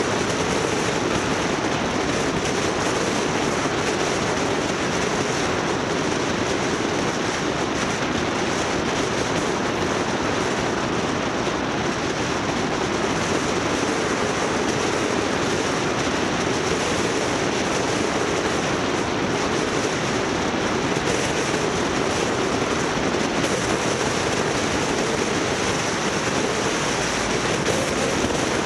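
Steady rumble and hiss of a vehicle travelling along a road: engine, tyre and wind noise without a break.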